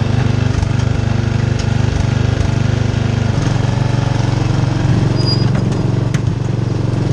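Riding lawn mower's small engine running steadily while towing a wagon over rough woodland ground, its note shifting and growing stronger about three seconds in, with a few sharp knocks from the bouncing wagon.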